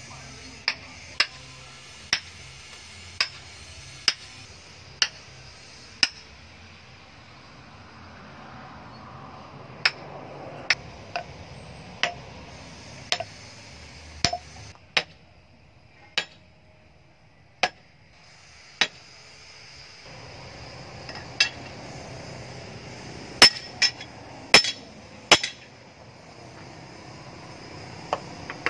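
Blacksmith's hand hammer striking a kitchen-knife blade on a steel anvil: single ringing metallic blows about one a second, then more irregular ones with a pause, and a quick run of four blows near the end.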